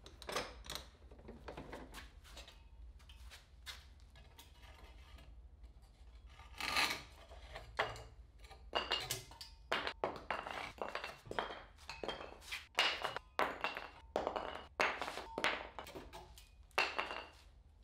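Handsaw cutting through plywood in short, irregular strokes, finishing slot cuts that stopped short of drilled holes. Wooden offcuts knock against the bench with a few brief pings as they come free. Quieter at first, with the sawing starting a few seconds in.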